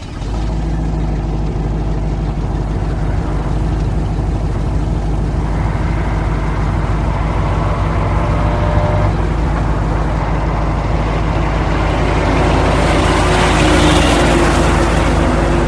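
Racing truck engine running with a steady low drone, joined by a rushing noise that builds through the second half and peaks shortly before the end.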